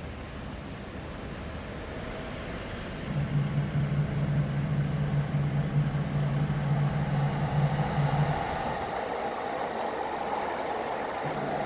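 A motor hums steadily, cutting in about three seconds in, stopping around eight seconds in, and starting again near the end, over a constant rushing noise.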